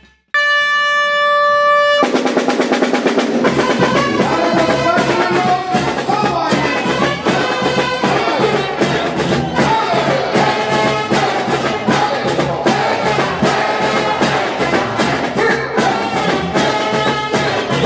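Pandilla dance music played by a band with trumpets and drums at a steady beat. It opens with one held high note, and the full band comes in about two seconds in.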